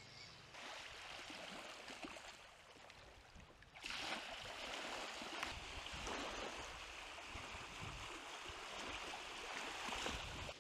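Steady rushing of running water from a creek, faint at first and stepping up louder about four seconds in.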